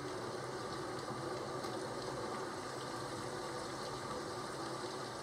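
Steady rain ambience: a constant, even hiss of falling rain with no breaks.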